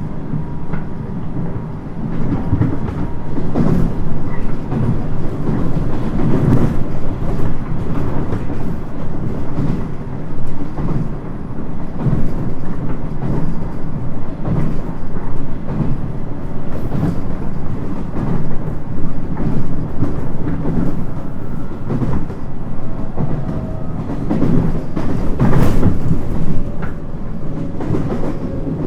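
719 series electric train heard from inside the car while running: a steady rumble of wheels on rail with repeated, irregular clicks and knocks over rail joints, on track in poor condition that makes the ride rough and noisy.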